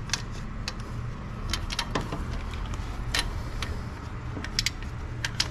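Hand tools clinking on metal under the car: scattered sharp clicks and taps of a wrench being tried on the exhaust header bolts, over a steady low hum.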